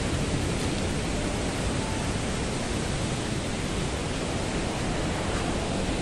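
Waterfall water rushing: a steady, unbroken wash of noise with a deep low rumble beneath it.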